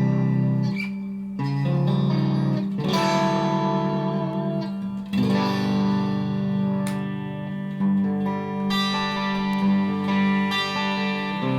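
PRS Silver Sky electric guitar played through a Mesa Triple Crown amplifier with effects pedals: chords struck every second or two and left to ring.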